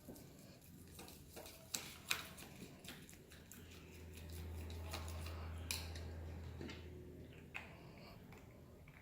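A stirrer clicking and scraping against a container while mixing PVA glue and food colouring for slime, in irregular small knocks, two of them sharper about two seconds in. A low hum swells for a few seconds in the middle.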